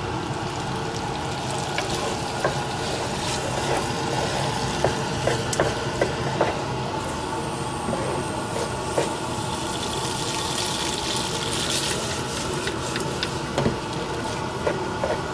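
Pasta and guanciale sizzling steadily in a non-stick pan over raised heat, with a wooden spoon scraping and knocking against the pan now and then as it is stirred.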